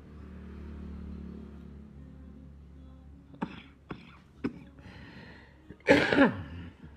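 A low steady hum, then three sharp clicks about half a second apart, followed near the end by a person's loud, short cough-like vocal sound that falls in pitch.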